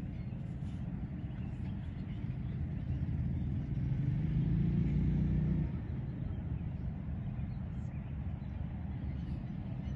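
Low engine rumble from a motor vehicle, steady throughout, swelling louder with a hum from about three seconds in and dropping back suddenly a little before six seconds.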